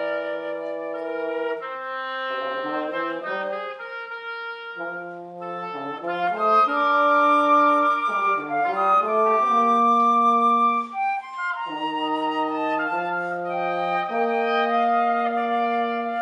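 Flute, French horn and oboe playing together as a wind trio: sustained notes in harmony that change every second or so, loudest in the middle stretch.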